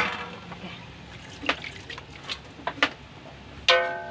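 Metal spatula knocking and scraping against a wok while stir-frying vegetables over a wood fire: scattered light clicks, with a ringing metallic clang near the end, over faint frying noise.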